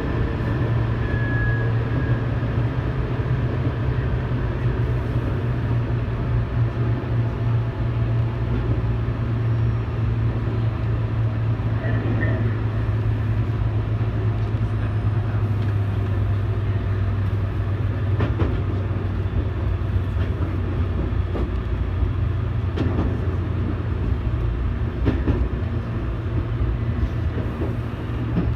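Tobu 8000 series electric train running, heard from inside the car: a steady low hum from the running gear and wheels on rail, with a few faint clicks from rail joints in the later part.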